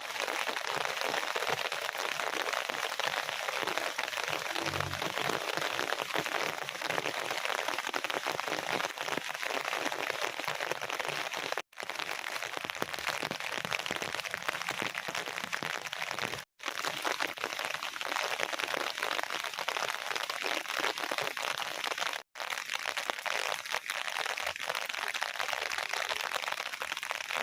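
Heavy rain falling steadily, a dense even hiss, cut off abruptly three times for a split second.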